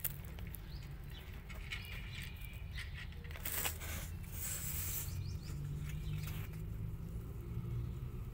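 Kittens scrabbling on a cloth in a cardboard box: soft rustling and scraping, loudest about three and a half seconds in, over a steady low background hum.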